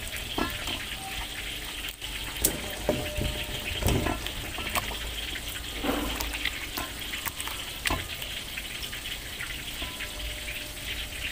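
Wet squelching and sloshing as a gloved hand works a whole chicken around in a beer, egg and flour marinade in a stainless steel bowl, with a few soft knocks against the bowl, over a steady hiss.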